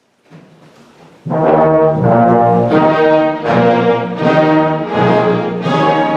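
Symphony orchestra's brass section opening with loud, full chords that come in about a second in and change roughly every three-quarters of a second.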